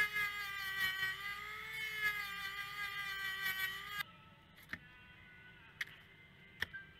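Handheld rotary tool with a small wheel working the steel blade of a pair of shears, running with a high whine whose pitch wavers slightly under load. It cuts off suddenly about four seconds in, leaving faint tones and a few soft clicks.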